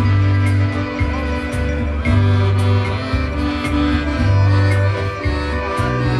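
Live polka band playing: accordions hold a melody over a bass that alternates between two low notes, with light cymbal taps.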